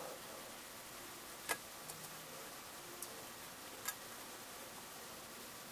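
Golden hamster moving about in a metal tin: a few sparse, sharp clicks, the loudest about a second and a half in, over a faint hiss.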